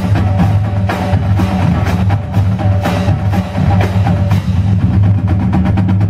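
Marching drumline playing a cadence: rapid snare drum strokes, tenor drums and tuned bass drums, with crash cymbals, in a steady driving rhythm with loud accented hits.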